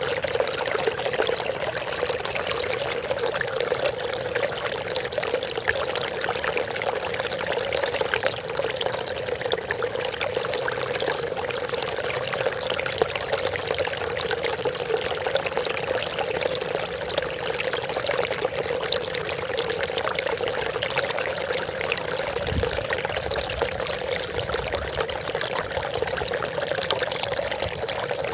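Water trickling and splashing continuously, an even, unbroken babbling of falling water.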